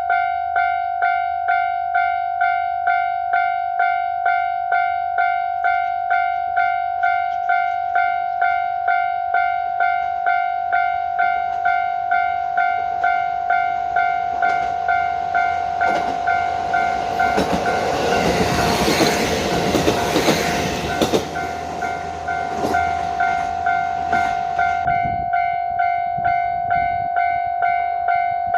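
Japanese level-crossing alarm ringing steadily, about three strokes every two seconds. About halfway through, a KiHa 40 diesel railcar runs over the crossing for some ten seconds, its engine and wheels drowning the bell, with sharp clacks of the wheels over the rail joints.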